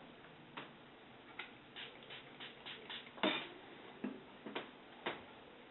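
Light, irregular clicks and taps from small objects being handled, about a dozen, the loudest about three seconds in.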